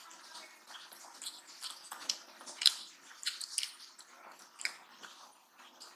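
Eating by hand: fingers squishing and mixing rice with chana dal gosht on a plate, with chewing, heard as irregular short wet clicks and smacks, the loudest about two and a half seconds in.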